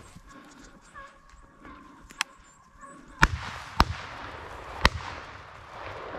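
Gunshots: a fainter crack about two seconds in, then three sharp shots about three, four and five seconds in, each trailing into a rolling echo.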